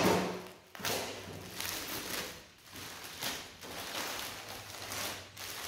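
Thin plastic bag rustling and crinkling in irregular bursts as a wrapped part is pulled out of it by hand.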